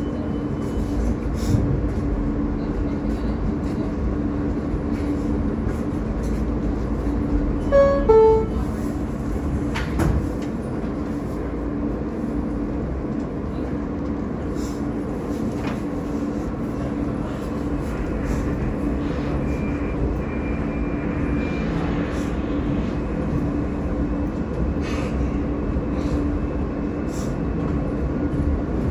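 Interior of an R160A New York subway car: the two-note descending door chime sounds about eight seconds in, a single knock follows as the doors shut, and then the train runs with steady rumble and a constant electrical hum from its traction equipment.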